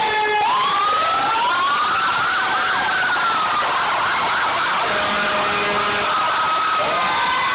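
Several emergency vehicle sirens from passing fire trucks and an ambulance sounding together: overlapping wails that rise and fall slowly, with a rapid warble in the middle and a new wail starting up near the end.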